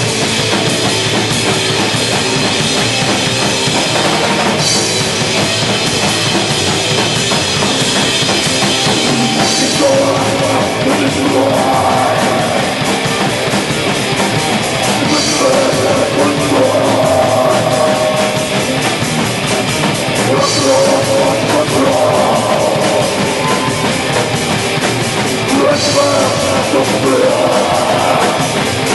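Hardcore punk band playing live: a loud, fast drum kit and distorted guitars keep up a steady, dense wall of sound.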